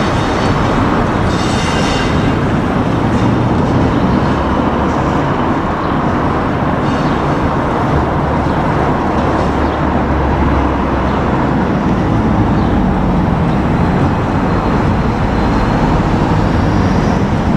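Pair of Class 59 diesel locomotives running light, their EMD two-stroke V16 engines droning steadily as they pull away, with a brief high wheel squeal about a second in.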